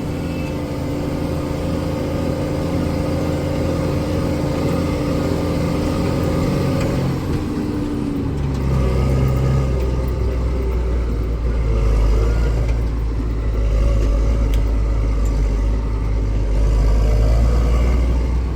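Case IH Puma tractor engine running under load while hauling a heavily loaded grain trailer, heard from inside the cab. About seven or eight seconds in, the steady engine tone changes and gives way to a deeper, slightly louder rumble.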